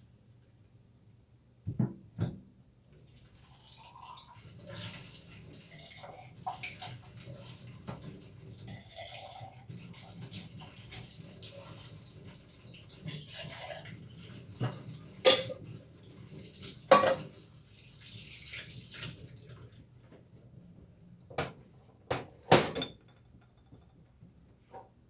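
Kitchen tap running into a sink for most of the time, with pots and dishes clanking; the sharpest clanks come a little past the middle and in a quick cluster near the end.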